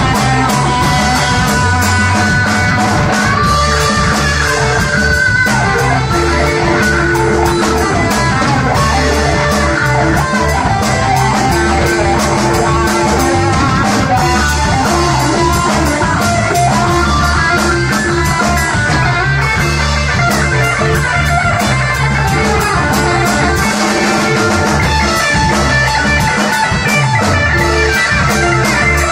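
Two electric guitars, a Stratocaster-style and an offset-body Jazzmaster-style, playing instrumental rock live through amplifiers, loud and steady, over a regular beat.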